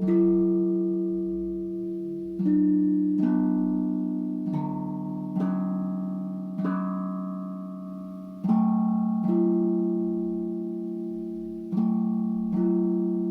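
Steel tank drum (tongue drum) played slowly: about ten single notes struck a second or two apart, each ringing on and fading so that the notes overlap into lingering chords.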